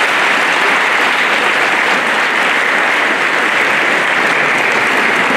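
A large crowd applauding, dense and even, holding at a steady level throughout.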